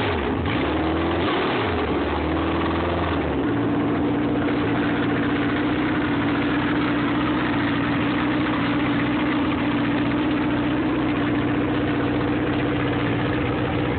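Ford 2.3-litre inline-four hydroplane racing engine running on a bench stand through long tube headers during its break-in run. Its speed rises and falls for the first three seconds or so, then settles to a steady, even speed.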